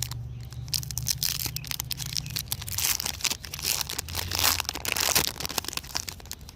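Foil booster pack being torn open and crinkled, a run of crackling and ripping.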